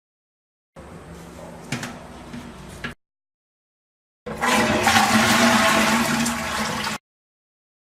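Toilet cistern flushing, heard as two separate cut-in clips: a quieter flush of about two seconds with a couple of sharp clicks, then a louder, fuller flush of about three seconds. Each clip stops abruptly.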